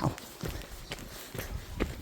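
Footsteps of a person walking along a footpath at a steady pace, about two steps a second.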